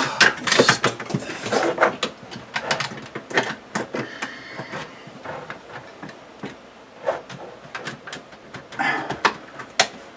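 Under-cabinet LED light fixture being handled and pushed up into place against the cabinet: a run of clicks, knocks and rattles, densest in the first couple of seconds and picking up again near the end.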